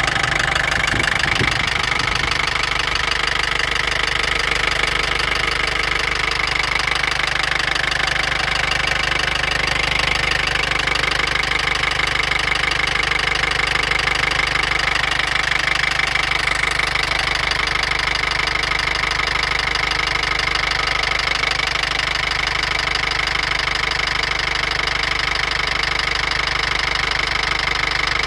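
Mercedes OM651 2.1-litre four-cylinder diesel engine running steadily with a repetitive knocking.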